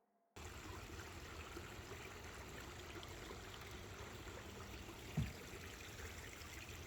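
Faint, steady rush of running water, like a stream, starting just after the music dies away, with a single soft low thump about five seconds in.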